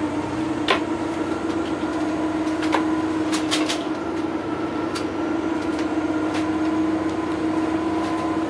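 Double-decker bus running along at a steady pace, heard inside the upper deck: a steady engine drone with road noise, broken by several sharp knocks and clicks, including a quick run of three about three and a half seconds in.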